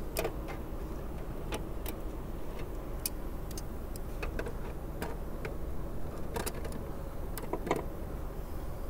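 Wire mesh clicking and rattling as it is worked and crimped into place with pliers: irregular light ticks, a few louder, over a steady low hum.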